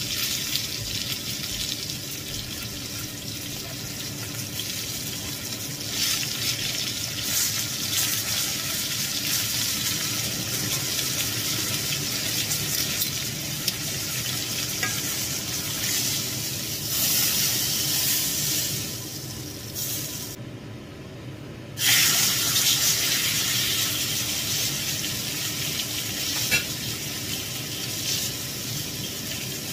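Marinated wild boar steak sizzling in melted margarine in a cast-iron skillet: a steady frying hiss that briefly drops away about two-thirds of the way through.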